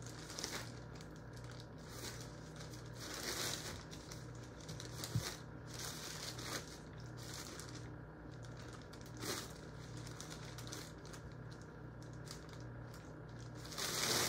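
Thin plastic shopping bag crinkling and rustling in irregular bursts as hands hold it open and raw chicken pieces are put in onto the flour.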